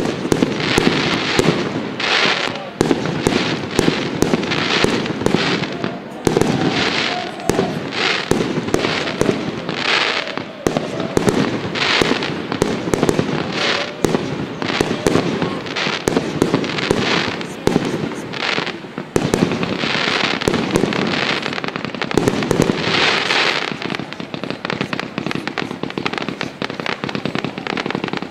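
Fireworks display in full volley: a steady run of sharp bangs from bursting shells, with crackling, hissing bursts about once a second.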